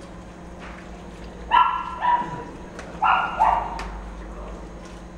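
A dog barking in short, high-pitched yaps, two quick pairs of them, about a second and a half in and again about three seconds in.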